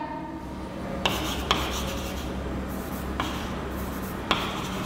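Chalk scratching across a blackboard as words are written, with a few sharper taps of the chalk against the board.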